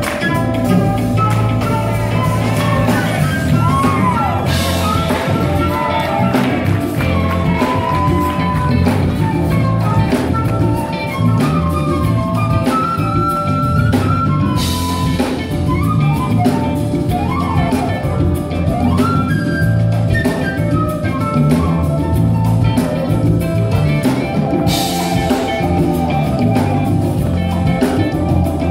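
Live jazz band: a flute plays the lead melody over keyboard and drums with a steady low groove. A cymbal crash comes roughly every ten seconds.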